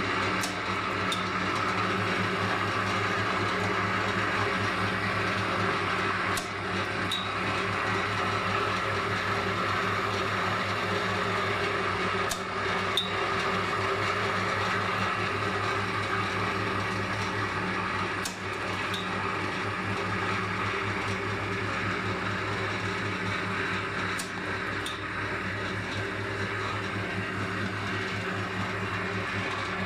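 Homemade wire straightening-and-cutting machine for fishing leaders running, its electric motor giving a steady low hum, with a sharp click about every six seconds.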